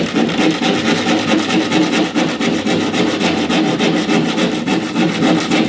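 A hand saw cutting through a car windshield's laminated glass: a loud, continuous scraping rasp of rapid back-and-forth strokes.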